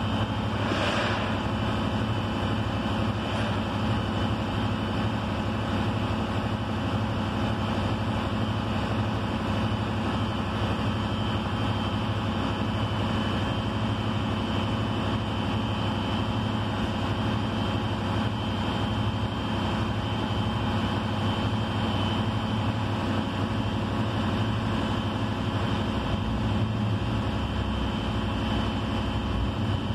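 Steady, unchanging drone of the tow truck's engine idling, heard from inside the cab.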